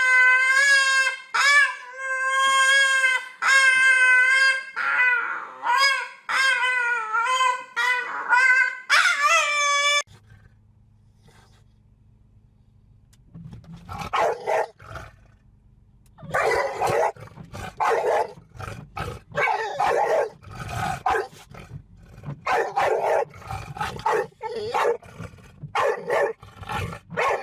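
A dog howling in long, wavering drawn-out calls. After a short pause it gives a run of barks, about one a second.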